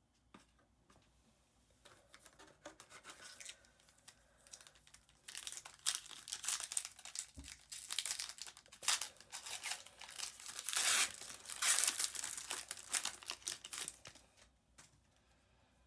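Wrapper of a Panini Prizm football card pack crinkling and tearing as the pack is opened. Faint at first, then dense crackling from about five seconds in that fades out near the end.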